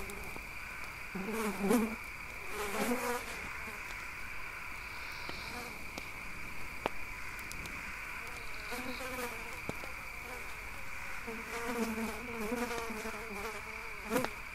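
Insects buzzing: a steady high drone throughout, with a lower wavering buzz that comes and goes several times, like a fly passing close.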